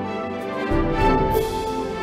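Slow instrumental music: held chords, with a low bass note coming in under a second in and a bright shimmer near the end.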